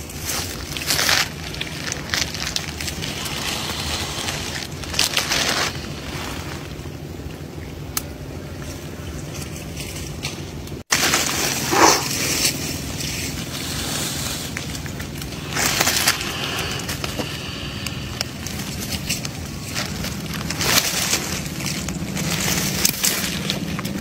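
A Komodo dragon swallowing a whole goat among dry grass and brush: short bouts of rustling and crunching come every few seconds over a steady low background hum.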